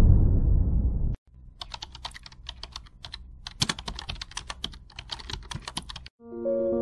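Keyboard typing sound effect: a run of quick, irregular key clicks lasting about five seconds. It follows a loud low rumble that cuts off about a second in, and soft piano music starts near the end.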